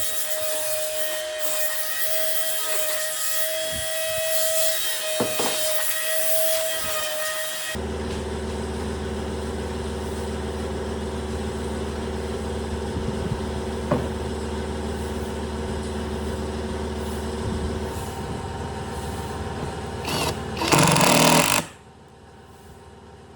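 Woodworking power tools running. For the first eight seconds one tool gives a steady whine over noise. Then a different machine runs with a steady low hum, with a short, much louder burst near the end before the sound drops away.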